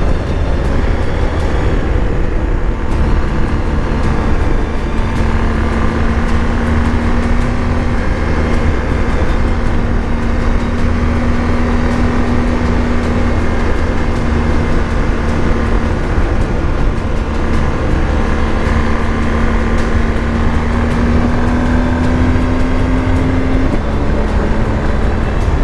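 BMW R 1250 GS Adventure's boxer-twin engine running at a steady road speed under a heavy low rush of wind. The engine note climbs slowly near the end, then drops suddenly about a second before the end.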